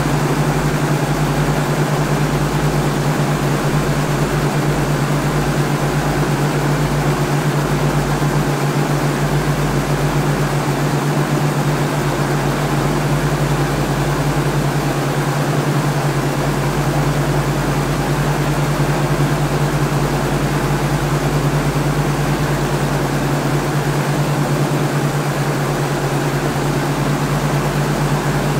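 Helicopter cabin noise: a steady, unchanging drone of engine and rotor with a strong low hum and a hiss of rushing air.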